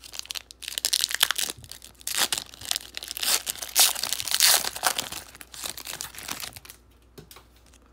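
Plastic foil wrapper of a football trading-card pack crinkling and tearing as it is ripped open by hand, in a run of irregular crackles that thin out near the end.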